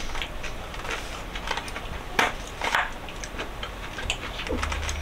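Light clicks and taps of a metal fork against a bowl while eating, scattered and irregular, the sharpest two about two and three seconds in.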